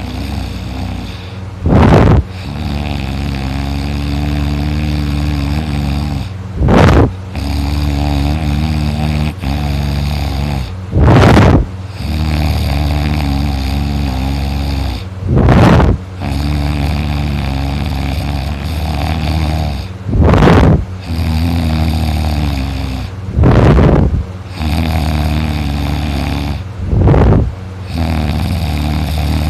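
A man snoring loudly in his sleep. A low, droning snore of three to four seconds alternates with a short, much louder noisy breath, which comes seven times at intervals of four to five seconds.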